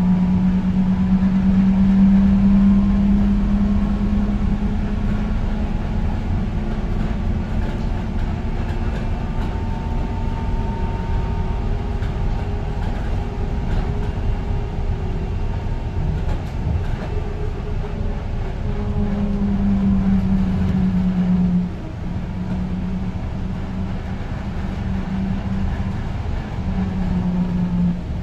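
Inside a New Routemaster diesel-electric hybrid double-decker bus on the move: a steady low drone from the drivetrain over road rumble. The drone is strongest for the first few seconds, fades, then comes back for a couple of seconds before dropping away suddenly about three-quarters of the way through.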